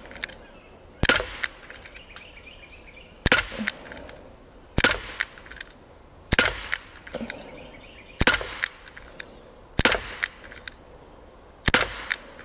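Daisy Powerline 5501 CO2 blowback BB pistol fired seven times in a steady string, one sharp pop every one and a half to two seconds, each followed closely by fainter clicks.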